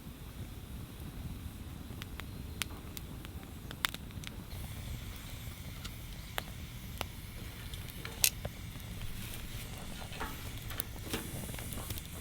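Wood campfire crackling, with irregular sharp pops, the loudest about eight seconds in, over a low steady rumble.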